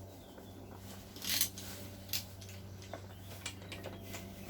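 Handling noises during an engine teardown: a brief scrape about a second in and a few faint clicks of parts being moved, over a steady low hum.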